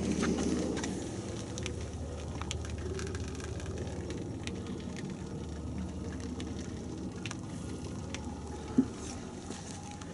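Thick car-wash foam fizzing and crackling as its bubbles pop, a steady hiss dotted with small clicks, a little louder at first, over a low steady hum. A single short knock near the end.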